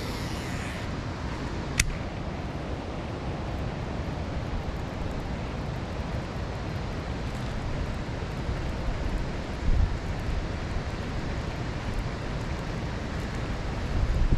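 Steady rush of a waterfall and fast-moving river current. There is a single sharp click about two seconds in, and brief low rumbles about ten seconds in and again near the end.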